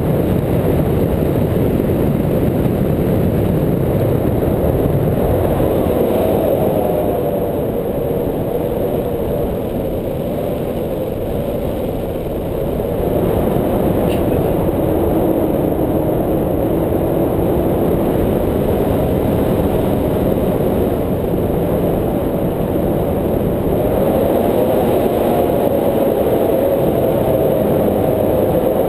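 Wind from the airflow of a paraglider in flight rushing over the camera's microphone: a loud, steady rumble that eases a little about ten seconds in and then rises again.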